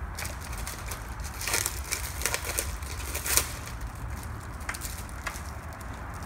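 Irregular clicking and crinkling of plastic as a headlight assembly and its small retaining clips are handled, with a cluster of sharper clicks in the middle.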